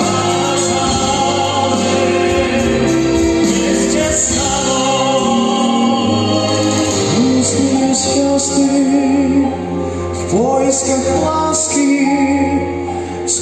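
A song: several voices singing in harmony over instrumental backing music, with held notes and a few sliding vocal notes in the second half.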